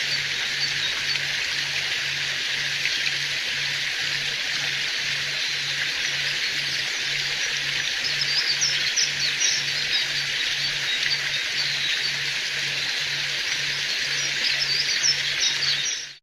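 Steady rushing water of a forest river, with small birds chirping here and there, more often about halfway through and again near the end. The sound fades out at the very end.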